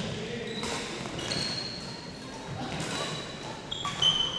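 Badminton rally: rackets strike the shuttlecock a few times with sharp clicks, the loudest near the end, among high squeaks of sneakers on the hardwood gym floor.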